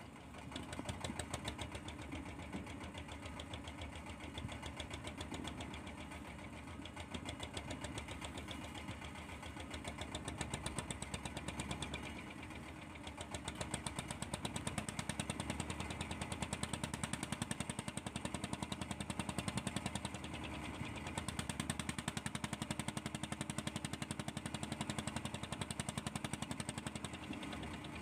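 A fishing boat's engine running at a steady idle with a fast, even pulsing beat, which grows a little louder about halfway through.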